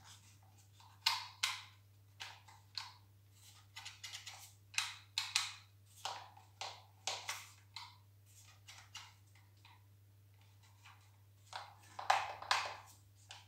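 Irregular plastic clicks and taps from the housing of a Nilfisk G3 pressure washer spray gun being handled and fitted together, in several short clusters, over a faint steady low hum.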